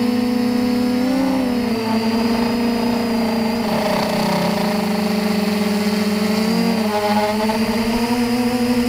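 Quadcopter motors and propellers humming steadily, their pitch dipping and rising briefly several times as the throttle changes during flight.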